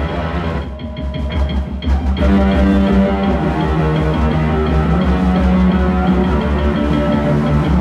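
Live rock band playing, with guitar, bass and drums. The sound thins out briefly about a second in, then the full band comes back in louder and keeps going.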